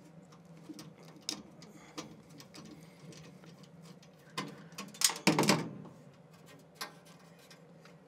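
Hand work on a gas furnace's burner assembly as the flame sensor, held by one screw, is unscrewed and pulled out. There are scattered small metallic clicks and ticks, then a louder cluster of scraping and rattling about four and a half to six seconds in, over a low steady hum.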